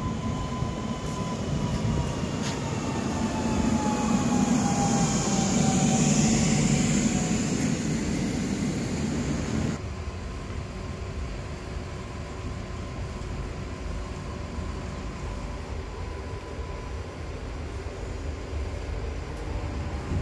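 Electric commuter train arriving at a platform: a motor whine glides down in pitch as it slows, while the running noise swells to a peak and falls away. About ten seconds in, the sound cuts to a steady low hum and rumble inside a train carriage.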